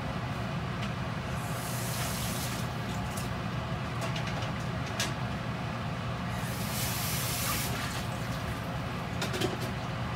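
A pot of braised chicken with sauce, potatoes and green onions cooking on the stove: hissing steam comes in twice, with a few sharp pops, over a steady low hum.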